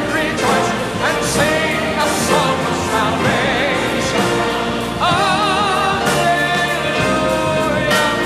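Sacred song performance: a singer with wide vibrato over a full accompaniment, with a new sung phrase beginning about five seconds in.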